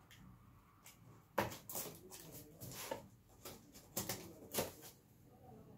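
Cardboard box being opened: about eight short scrapes and rustles as the packing tape on its lid is cut, the first and loudest about a second and a half in.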